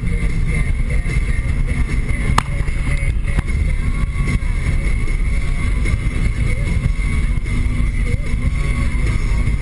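Steady engine and road noise of a 2013 Nissan Sentra SR, with its CVT, cruising on the road, heard from inside the cabin. A single sharp click comes about two and a half seconds in.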